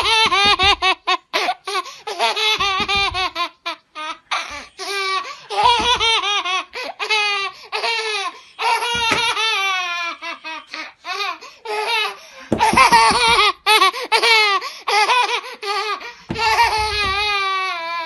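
A toddler laughing hard: repeated fits of high-pitched belly laughter that break off and start again.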